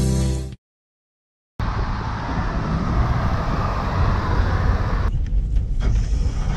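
The last half-second of guitar music cuts off, and after a second of silence comes steady road and traffic noise from a car on a highway. About five seconds in, it changes to the lower rumble of a car driving on a rough dirt track, with scattered knocks and rattles.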